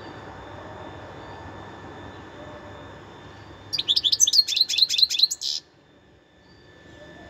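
European goldfinch singing: one burst of rapid twittering, about two seconds long, starting about halfway through, over faint steady background noise.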